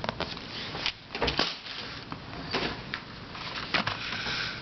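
Handling noise from small puzzles and their packaging being picked up and moved around: a series of light clicks, knocks and rustles, with the sharpest knocks about a second and a half in and near the end.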